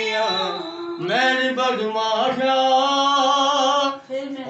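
A solo voice singing long, held, wavering notes of a Punjabi folk-style melody, with a brief break about a second in and another just before the end.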